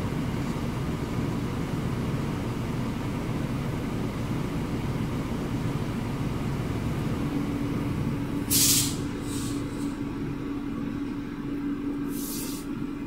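Heavy truck's engine running steadily, with a loud short hiss of air about two-thirds of the way in, two small puffs right after it, and another hiss near the end: the truck's air brake system letting out air.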